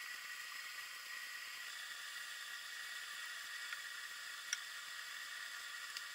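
Faint steady hiss of an underwater fishing camera's audio, with a thin steady tone and a couple of faint ticks about four seconds in.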